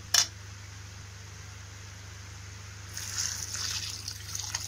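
A stream of water poured into a kadai of sautéed vegetables, starting about three seconds in and running for about a second and a half. One short knock sounds just after the start, over a steady low hum.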